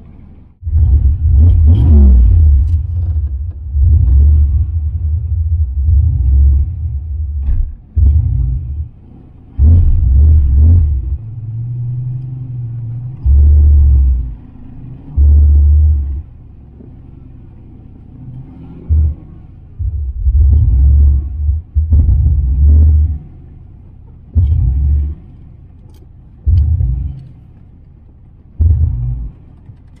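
Turbocharged Fox-body Ford Mustang 5.0 V8 under repeated throttle: about a dozen bursts of heavy, low rumble as it accelerates, some long pulls and some short blips, with quieter running between them. Near the start a pull rises in pitch as the revs climb.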